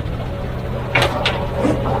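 Heavy diesel earthmoving machine's engine running steadily, with two sharp knocks about a second in and a fainter one near the end.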